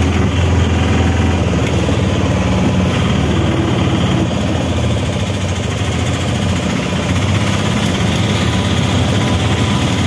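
Steady engine drone of a moving vehicle heard from aboard it, with a strong low hum and traffic noise.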